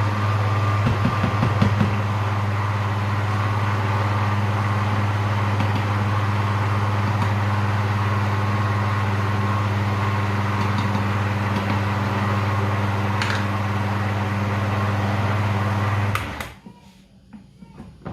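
Electric blender motor running steadily while mixing pizza dough of flour and liquid, with a constant hum; it is switched off and cuts out about sixteen seconds in.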